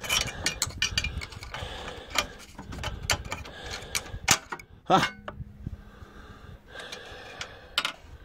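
Screwdriver clicking and scraping against the metal of a Briggs & Stratton 208 cc OHV snowblower engine: a run of irregular clicks and knocks, the loudest a sharp clack with a short ring about five seconds in.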